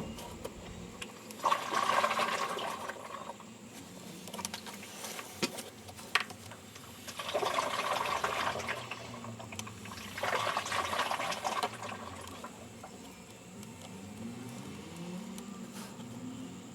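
Water rushing and swishing inside a washing machine in three separate bursts of a second or two each, with scattered light clicks. Faint rising hums come in near the end.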